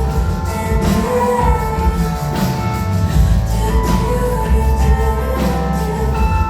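Live band music with a steady beat: keyboards over bass and drums, with a woman singing.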